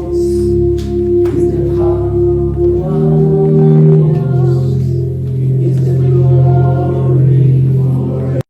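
Worship music with sustained chords over a strong bass, changing chord a few times, cutting off abruptly near the end.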